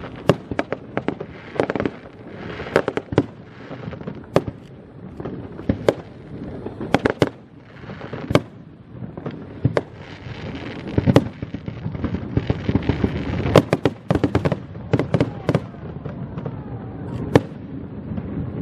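Aerial fireworks bursting: an irregular string of sharp cracks and bangs, some in quick clusters, over a continuous rumble.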